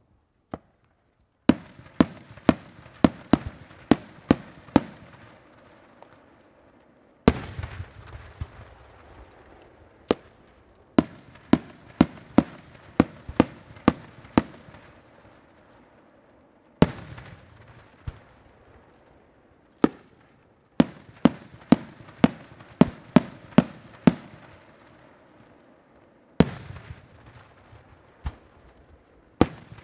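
Aerial fireworks bursting in runs of sharp bangs, about two to three a second. Three heavier bursts are spread through, each fading out over a few seconds.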